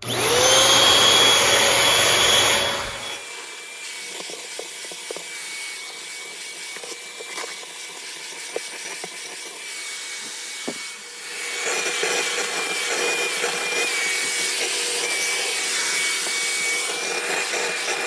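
Bissell Featherweight stick vacuum, used as a handheld with its crevice tool, switching on with a whine that settles into a steady pitch and running loud for about three seconds. It then runs quieter with scattered clicks as the nozzle works over the carpet, and louder again from about eleven seconds in.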